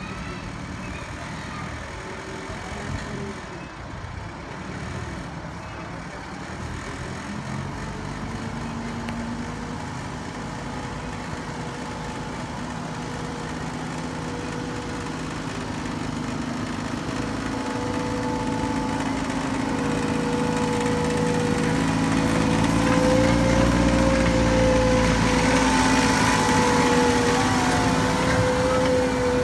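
Steam-outline diesel-hydraulic miniature railway locomotive Triton with its engine running, growing louder over the second half as it approaches and passes close by.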